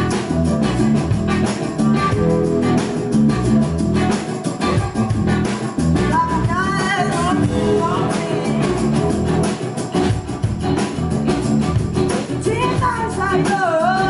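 Live rock band playing electric guitars over a drum kit with a steady beat. A woman's lead vocal comes in about halfway through and again near the end.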